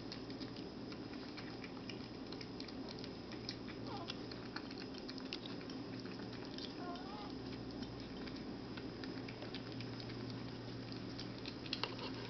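Persian kittens eating: scattered small clicks and smacks of chewing and lapping, with a few sharper ones near the end, over a steady low hum.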